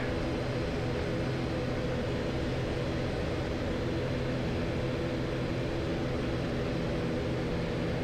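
Airliner engines running steadily at low taxi power, heard inside the cockpit: an even, unchanging drone of several low tones over a hiss.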